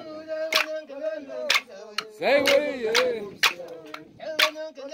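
Group singing a traditional dance song, voices holding and bending long notes, with a sharp percussive beat about once a second keeping time.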